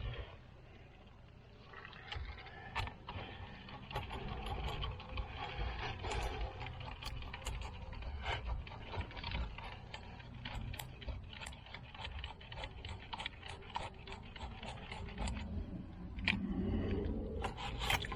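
Scraping and a run of sharp clicks from a worm-drive hose clamp and its fittings being worked onto a sewer pipe. The clicks come roughly two a second through the middle.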